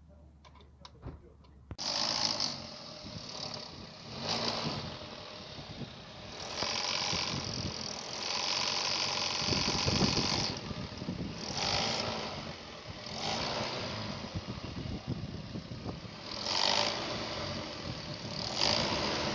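A few faint clicks, then about two seconds in a car engine comes in suddenly and keeps running, its level rising and falling several times, with a rattling mechanical noise. The noise is typical of a broken alternator decoupler pulley, whose rubber-and-aluminium clutch has failed.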